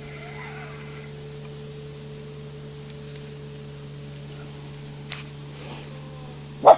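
A steady low hum, even in pitch, with a faint tick about five seconds in and a short, sharp, loud sound just before the end.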